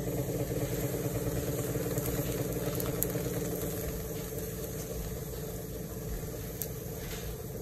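Steady motor hum with a constant pitch, with a couple of faint clicks.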